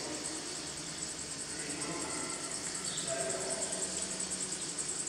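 Insects chirring, a steady high, finely pulsing buzz that grows slowly louder.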